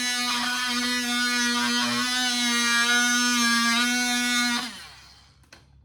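Oscillating multitool running at a steady high-pitched buzz, then switched off about four and a half seconds in, its pitch dropping as it winds down.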